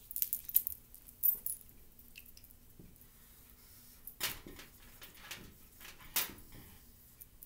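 Marker writing on a board: a handful of short, scratchy squeaks and taps, a cluster in the first second and a half and single strokes about four and six seconds in.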